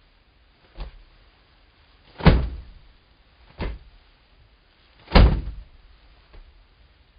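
Five dull knocks at uneven intervals, each dying away quickly, the loudest about five seconds in.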